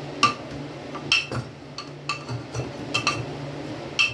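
A metal utensil mashing boiled dal inside a pressure cooker, clinking against the pot's sides and bottom in irregular strikes about one or two a second.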